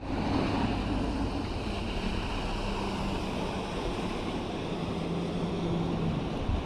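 Wind buffeting the microphone and waves washing against the jetty rocks, with the low, steady drone of a passing motorboat's engine under it.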